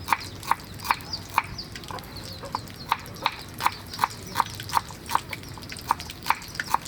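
Steady rhythmic knocking, about two to three sharp strokes a second, with faint high chirps above it.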